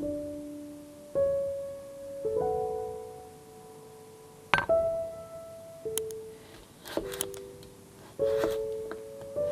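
Background piano music, single held notes that ring and fade one after another. A few short sharp clicks or knocks fall among the notes in the second half.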